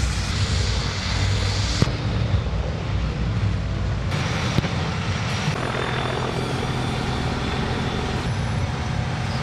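Heavy armoured military vehicle engines running with a steady low drone. The sound changes abruptly about two, four and five and a half seconds in, at cuts between vehicles.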